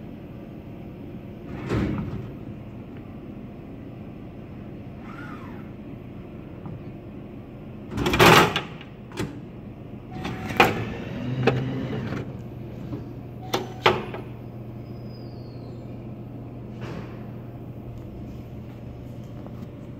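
Dixie Narco DN5800 glass-front vending machine delivering a bottle. A loud clatter comes about eight seconds in as the bottle reaches the delivery port, then several sharp clunks and clicks of the port door as the bottle is taken out, with a low hum setting in partway through.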